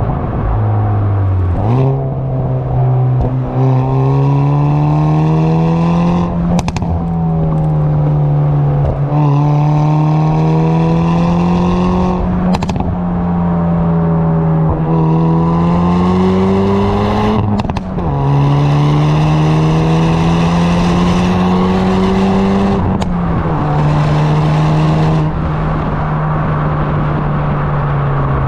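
Hyundai Veloster N's stock exhaust on its 2.0-litre turbocharged four-cylinder, heard from the rear of the moving car: the engine note climbs steadily under acceleration, drops sharply at each gear change, and eases back off throttle. Brief sharp cracks come at several of the shifts.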